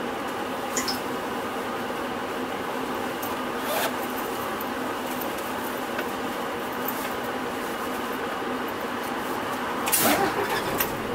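Cabin sound inside a Hino Rainbow non-step diesel bus: a steady engine and running hum with a few light rattles, and a louder short clatter about ten seconds in.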